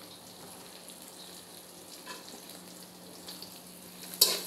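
Chopped onions and whole spices frying in oil in a metal wok, a low steady sizzle. Near the end a metal spatula strikes and scrapes the pan as stirring starts.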